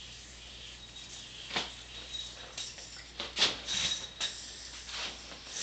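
An 888 yo-yo played freestyle: the spinning yo-yo gives a faint steady high whine, broken by quick string swishes and sharp snaps of the yo-yo landing on the string, once about a second and a half in and a cluster around three and a half seconds, the loudest of them.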